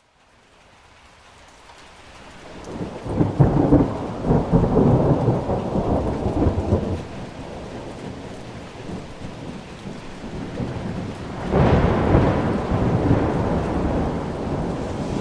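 Thunderstorm: steady rain hiss fading in from silence, then thunder rumbling for several seconds from about three seconds in. A second thunderclap breaks in suddenly near the end and keeps rolling.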